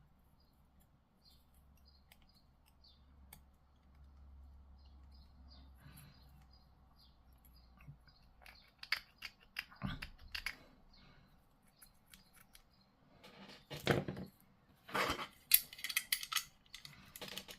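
Plastic model kit parts being handled and pressed together: sharp clicks and scraping that start about halfway and grow louder and busier near the end. Faint short high chirps come through in the quieter first half.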